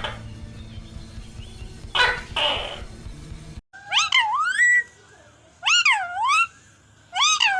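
An animal's high, wavering whining calls in three short bouts, the pitch swinging up and down within each. Before them, over a low background hum, comes a brief double call about two seconds in.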